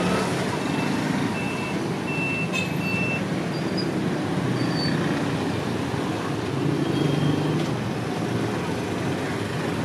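Steady street traffic noise from passing vehicles, with a run of about four short, high beeps in the first three seconds.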